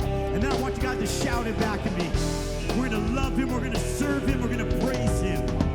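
Live worship band music, with guitar prominent in a full band sound and voices singing along.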